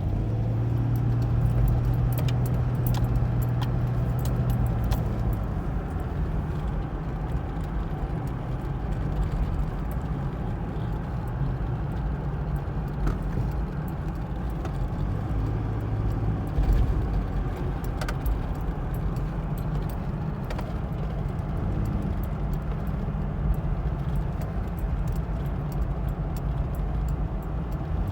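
Nissan VG33E 3.3-litre V6 idling roughly, its low hum swelling and fading unevenly, with scattered light ticks and rattles. The rough idle is put down to a knock sensor code.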